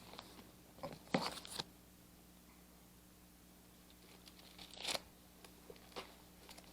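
Paper rustling as pages are turned, two short louder rustles about a second in and near the middle, with a few faint ticks of handling after.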